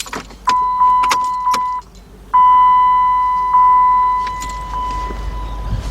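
Dodge Avenger's dashboard warning chime sounding twice as the key goes in and is turned to the on position. Each is a steady ding that slowly fades, the second one longer. There are a few sharp clicks of keys and the ignition around it.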